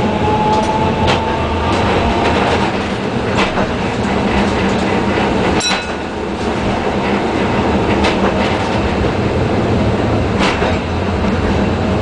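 Blackpool Balloon double-deck tram running along the track, heard inside its saloon: a steady rumble and low motor hum, with a sharp click from the wheels about every two and a half seconds.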